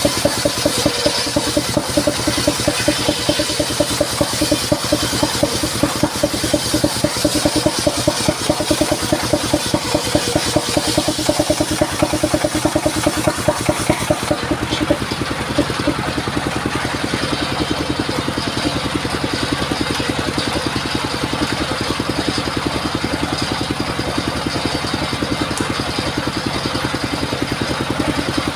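Engine of a mobile circular sawmill running steadily, with a fast, even firing rhythm. About halfway through, the higher hiss drops away and the running sound becomes smoother and slightly quieter.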